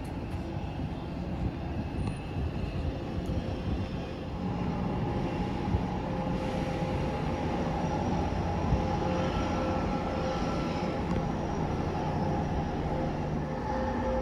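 Steady low drone of a large ferry's machinery heard on its open deck, with wind noise on the microphone. About four seconds in, a steady two-tone hum joins and the drone grows slightly louder.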